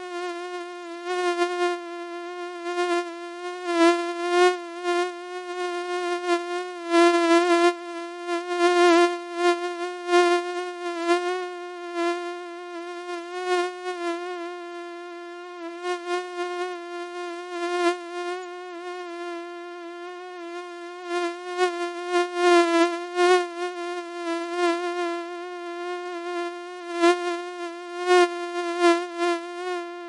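Mosquito buzzing: a steady high whine with many overtones that wavers slightly in pitch and repeatedly swells louder and fades back.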